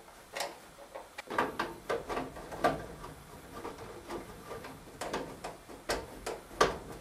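Screws being fitted by hand to secure a furnace blower assembly in its sheet-metal cabinet: irregular light clicks and scrapes of metal on metal.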